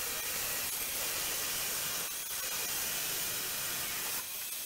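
Table saw running while a wooden board is ripped lengthwise and pushed through with a push stick: a loud, steady, hissy whir, dipping briefly about two seconds in and again near the end.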